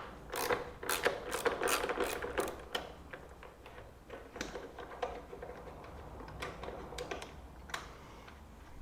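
A 12 mm socket ratchet clicking in quick runs as a bolt is worked loose, followed by a few scattered clicks and taps.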